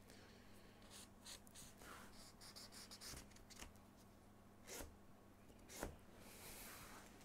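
Faint scratching of a pencil tracing along the edge of a template onto plywood, with a few light knocks, the sharpest about a second before the end. A low steady hum runs underneath.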